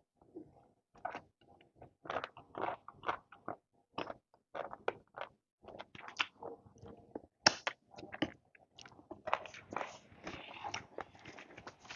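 Close-miked sounds of a person eating: irregular wet chewing, biting and mouth smacks, with one sharp, loud click about seven and a half seconds in and busier, denser eating sounds near the end.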